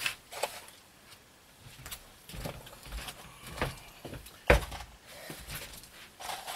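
Scattered knocks and clatter from a person handling things and moving about on a wooden floor, with one sharp knock about four and a half seconds in.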